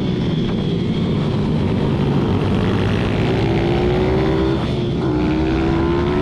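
Racing pit bike's single-cylinder engine running hard under throttle. Its pitch climbs steadily, dips briefly about three-quarters of the way through, then climbs again.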